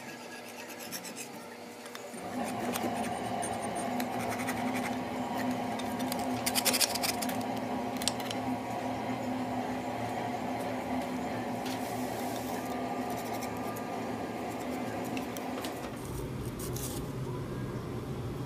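Metal spatula scraper rasping rust and softened gunk off a rusty old vise, in irregular scraping strokes. A steady hum starts about two seconds in and stops near the end.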